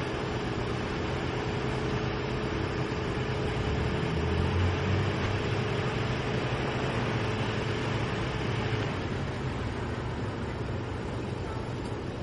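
Steady mechanical drone, like an engine or machine running at idle, with a hum that cuts out about nine seconds in.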